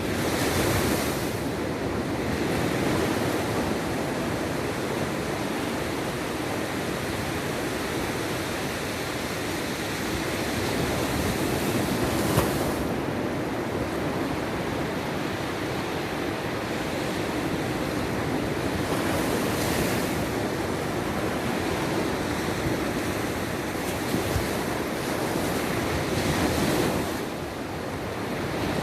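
Sea waves breaking and washing on the shore, rising and falling in swells, with some wind on the microphone.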